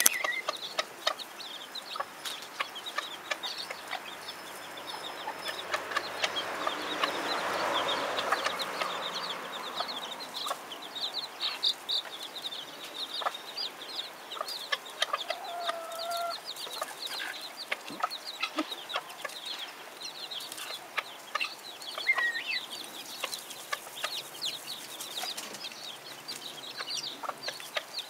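Baby chicks peeping constantly in short high chirps, with a few lower calls from the mother hen. A broad rushing noise swells and fades between about five and ten seconds in.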